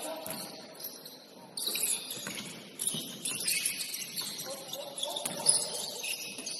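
Basketball sneakers squeaking on a hardwood gym floor during play, many short high squeaks in quick, irregular succession, with a sharp knock about five and a half seconds in.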